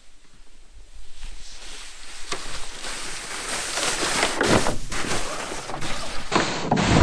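Sled sliding down a snowy slope: a hiss of snow under the sled starts about a second in and grows louder, with a few thumps.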